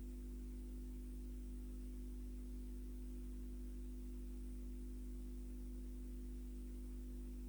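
Faint steady electrical hum with low hiss and no music: a constant low drone with a few steady higher tones above it, unchanging throughout.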